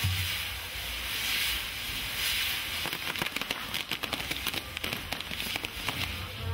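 Fireworks tower (castillo) going off: its spinning fire wheels hiss steadily, then a dense crackle of firecrackers starts about three seconds in and runs for about three seconds.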